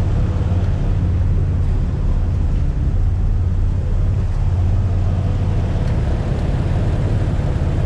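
A 2005 Jeep Wrangler TJ's 4.0-litre straight-six idling steadily, with a weird clicking noise at idle that the owner cannot pinpoint.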